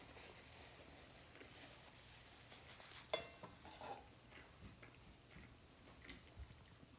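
Near silence, with one sharp clink of tableware about three seconds in and a few fainter small knocks, as from eating at a table.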